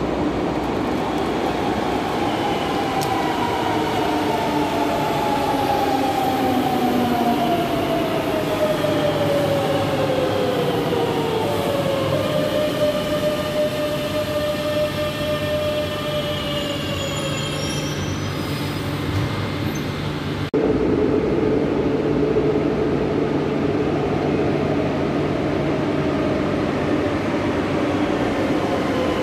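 Madrid Metro electric train arriving at an underground station: the traction motors' whine falls steadily in pitch as it brakes, then holds one tone as it comes to a stop. After a cut, a steady electrical hum from the train standing at the platform.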